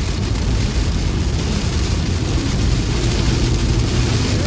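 Heavy storm rain and gusting wind beating on a car, a loud, steady, dense rush with a rumbling low end.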